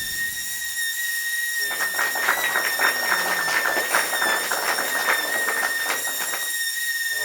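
Electric sander with 80-grit sandpaper running with a steady high-pitched whine. From about a second and a half in until near the end, the pad rasps over a wooden board as it sands.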